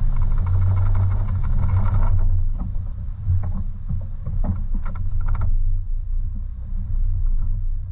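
Toyota 4Runner driving up a snowy, slushy dirt track: a steady low engine and drivetrain rumble. Tyres hiss through slush for the first two seconds or so. Scattered crunches and knocks follow over the next few seconds.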